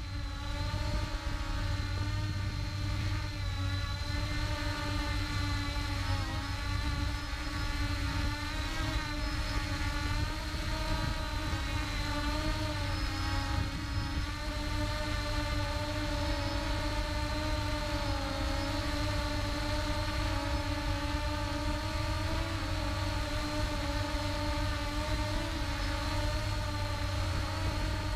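Ehang Ghost quadcopter's electric motors and propellers whirring steadily as it lifts off and climbs, heard close up from the camera carried on the drone. The pitch wavers a little as the throttle changes.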